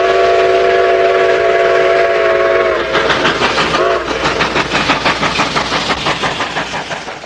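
Steam locomotive working hard, its exhaust beating in a fast, even chuff, with a chime steam whistle sounding one long chord and then a short toot about four seconds in. The chuffing fades toward the end.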